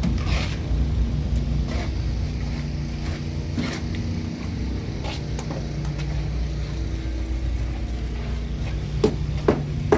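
An engine running steadily at an even pitch, with a few sharp knocks in the last second.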